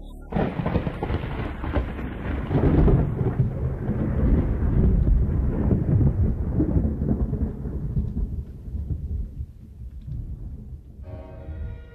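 Thunder sound effect: a sudden crash, then a long rolling rumble that swells and slowly dies away.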